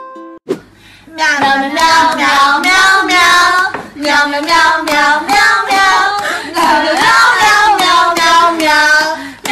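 A short click, then a high voice singing a melody in phrases of about a second, with a brief break about four seconds in.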